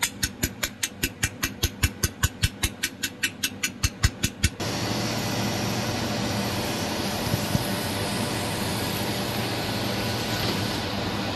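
Jewelry laser spot welder firing a rapid, even train of sharp snapping pulses, about five a second, as it welds thin metal sheets. The pulses cut off suddenly after about four and a half seconds, and a steady machine and fan whir with a low hum takes over.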